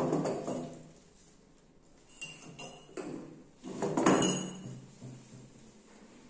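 Spoon clinking a few times against a ceramic mug, with two louder handling sounds near the start and about four seconds in.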